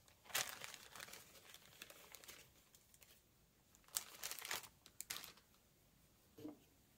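Faint crinkling and rustling in a few short bursts, about a second in and again around four to five seconds in, as small felt craft pieces are handled.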